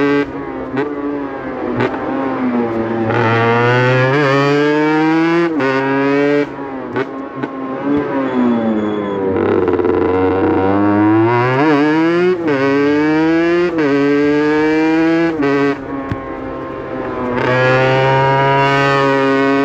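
Aprilia RS 125's single-cylinder two-stroke engine accelerating hard, revs climbing and then dropping sharply at each quick gear change. About halfway through the revs fall away and then build again through the gears.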